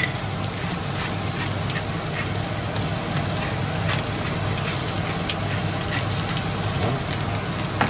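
Vegetable sticks and salmon sizzling and crackling in frying pans, a steady sizzle scattered with sharp pops, over a steady low hum.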